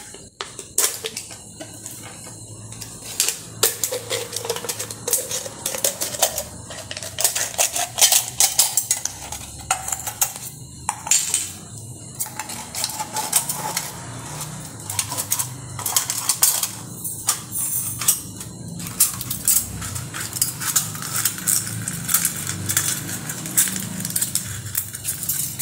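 Scissors cutting around a thin aluminium drink can, the thin metal crinkling and clicking with irregular sharp snips throughout.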